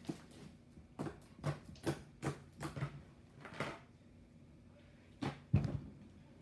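Hands squishing and stretching slime: a run of short wet squelches and clicks, a pause, then a louder cluster of squelches about five seconds in.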